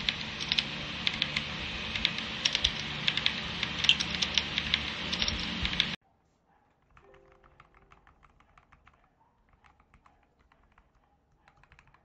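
Fast typing on a mechanical keyboard: dense, irregular clacking keystrokes over a steady hiss. About six seconds in it cuts abruptly to much quieter, sparser keystrokes.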